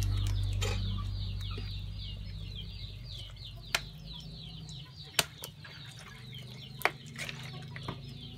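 A bird chirping rapidly outdoors, a string of quick high falling chirps several times a second, as background guitar music fades out in the first few seconds. Three sharp clicks stand out through the middle.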